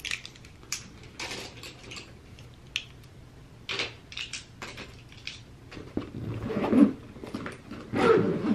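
Makeup brushes and tools being handled and packed into a makeup bag: scattered small clicks and clatters, then louder rustling and scraping in the last few seconds.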